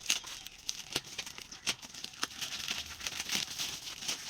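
Parcel packaging being torn and crumpled open: an irregular run of sharp crackles and rustles.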